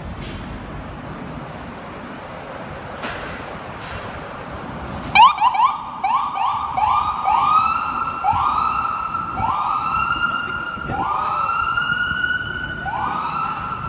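Ambulance electronic siren switching on about five seconds in, over street traffic noise. It starts with quick rising whoops that lengthen into slower rising tones about a second apart.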